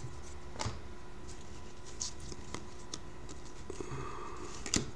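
Glossy trading cards handled by hand: soft sliding and a few light clicks as cards are flicked through and set down, the sharpest just before the end.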